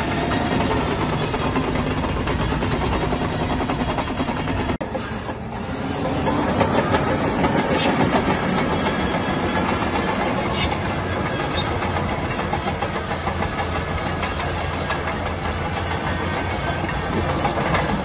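Shantui DH17C3 crawler bulldozer working: its diesel engine runs steadily under load, with the clatter of its steel tracks and a few sharp clanks. The sound drops out for an instant about five seconds in, then comes back louder.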